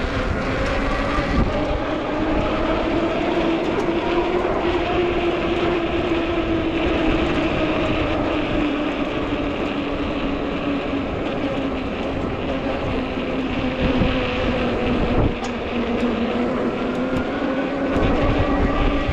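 Ecotric folding fat-tire e-bike riding along: a steady pitched hum from the drive and wide tires that drifts gently up and down in pitch with speed, over wind rumble on the microphone.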